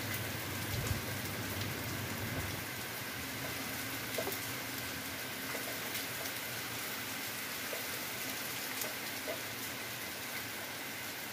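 Heavy rain pouring steadily, an even hiss.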